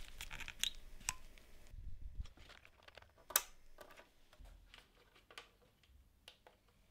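Small clicks and handling noise as an Ethernet cable's RJ45 plugs are pushed into their ports, with one sharper click about three seconds in.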